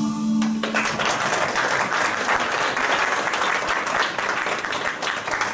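The last held note of a sung song ends about a second in, and audience applause follows. The applause is steady and fades at the end.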